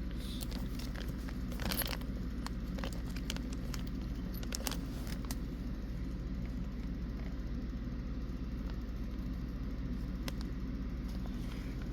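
Small plastic kit parts and their bags being handled: scattered light clicks, rattles and crinkles over a steady low hum.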